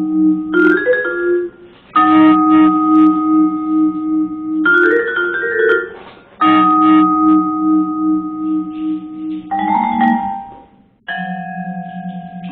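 Music: a repeating phrase of held, ringing chords that ends each time in a short run of higher notes, broken by brief pauses about every four to five seconds.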